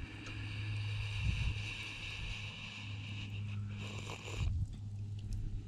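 A motor running with a steady low hum, and slurping sips of hot tea from a cup over the first few seconds.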